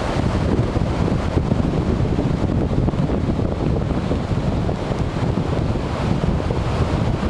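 Snowstorm wind blowing hard and steadily, buffeting the microphone with a low rumble.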